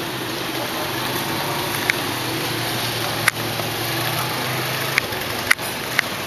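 A motorcycle engine running steadily over street noise, broken by five short sharp clicks.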